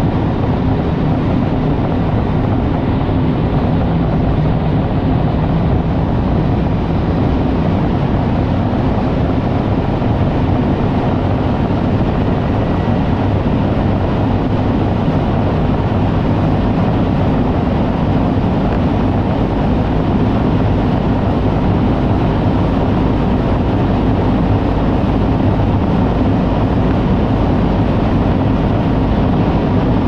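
Cabin noise inside a Rimac Nevera R electric hypercar accelerating flat out from about 290 to over 430 km/h: a loud, steady rush of wind and tyre noise that swells slightly towards the end.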